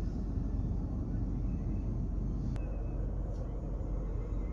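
Steady low rumble of a car heard from inside its cabin, with one sharp click about two and a half seconds in.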